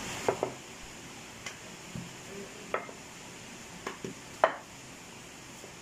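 Wooden rolling pin rolling out naan dough, with a few short, scattered knocks as the pin taps the rolling surface, over a steady faint hiss.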